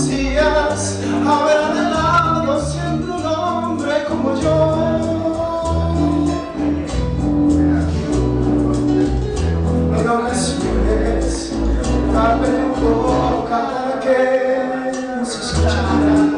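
A man singing into a microphone over instrumental accompaniment, with a bass line moving under the melody.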